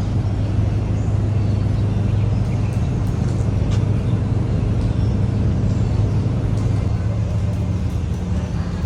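Steady low hum of a motor vehicle engine running, with street traffic noise.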